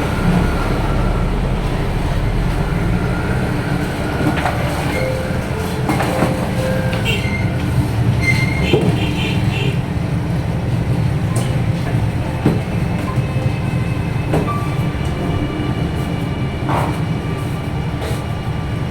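Steady low rumble with scattered knocks and clicks throughout.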